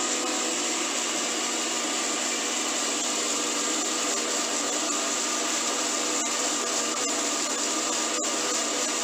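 Electric mixer grinder running steadily at full speed with a constant motor whine, grinding onion, ginger, garlic and herbs with a little water into a wet paste.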